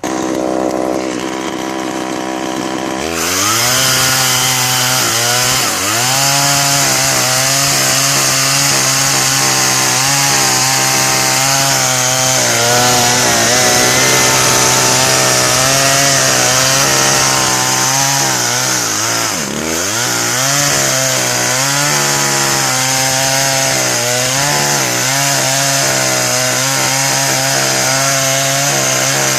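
Husqvarna 142 two-stroke chainsaw running at a lower steady speed, then revved to full throttle about three seconds in and held there while cutting through the limbs of a felled tree, its engine speed dipping briefly twice.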